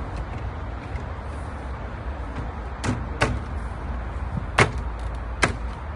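Sharp knocks of hollow PVC parts, five in all from about halfway through, as compost bin panels and brace bars are knocked into place on the posts. Under them runs a steady low rumble.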